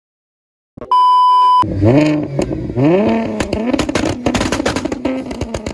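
A loud steady beep about a second in, then the single-turbo BMW N54 inline-six revving hard several times in quick rises. Near the end it holds a steadier note with rapid popping and crackling from the exhaust.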